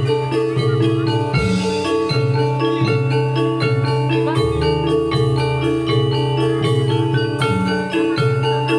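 Javanese gamelan music for jathilan, played loud through a sound system: metallophones strike fast runs of short ringing notes over steady low tones, with no singing.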